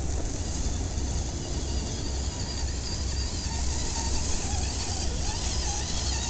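Wind buffeting the microphone in uneven gusts. From about three and a half seconds in, the faint whine of an RC rock crawler's small electric motor and gears comes in, wavering up and down in pitch as it approaches.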